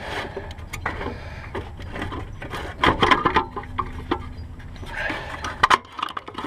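Irregular clicks, knocks and scrapes of metal parts and hand tools being handled as a car alternator is worked loose in the engine bay, busiest about three seconds in.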